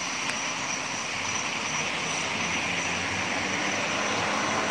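A steady mechanical drone, like a distant engine, slowly getting a little louder, with a thin steady high tone above it.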